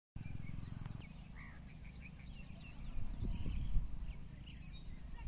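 Insects trilling in a steady, high, pulsing note, with short calls repeating about twice a second and scattered bird-like chirps. Underneath, wind rumbles on the microphone and gusts louder about three seconds in.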